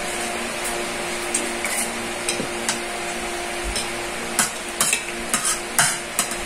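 Metal spoon scraping and clinking against a ceramic plate: a few light clicks at first, then a quicker run of sharper clinks in the second half, over a steady hiss and hum.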